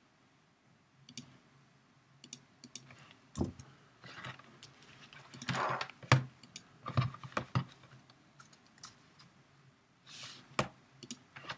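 Computer keyboard typing and mouse clicks, in short irregular runs of taps with pauses between them.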